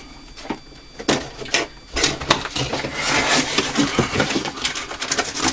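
A box of fireworks shells being opened and its contents handled: rustling and scraping, with several sharp knocks and clicks.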